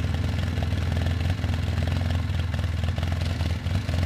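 Side-by-side UTV engine idling steadily, a low, even hum.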